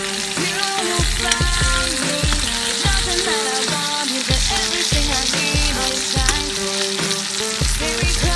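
Steak sizzling steadily in bubbling fat in a stainless steel frying pan, over background music with a beat.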